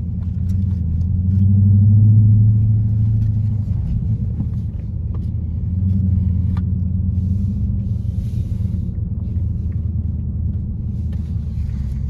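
Mopar V8 engine and exhaust running under way, heard from inside the car: a steady low rumble that swells about two seconds in and again around six seconds as the car pulls.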